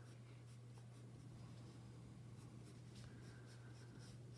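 Faint scratching of a coloured pencil drawing light strokes on paper, over a steady low hum.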